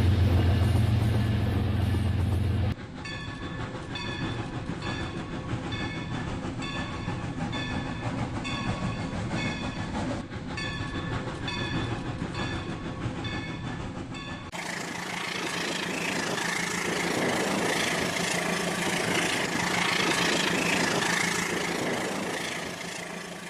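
Battery-powered Rail King toy train running on its track, with its electronic train sound effects. The sound changes abruptly a few times where clips are joined: a low hum at first, then a rhythmic repeating pattern, then a noisier running sound.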